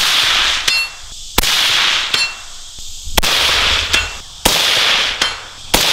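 Suppressed 5.56 AR-pattern rifle with a 10.5-inch barrel, fired through a HuxWrx (OSS) HX-QD flow-through suppressor. It fires about five single shots roughly a second and a half apart. Each shot is a sharp crack with a hissy tail of about a second, and a fainter tick follows less than a second after several of them.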